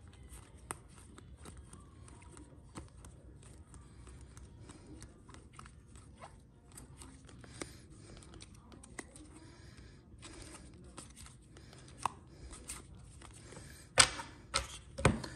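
Football trading cards being flipped through by hand: a run of soft clicks and slides of card against card, with a few louder snaps and crinkles near the end.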